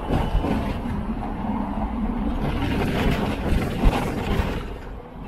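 Hong Kong double-decker tram running along the street: a steady rumble with a low hum that grows louder from about halfway through, then eases off near the end.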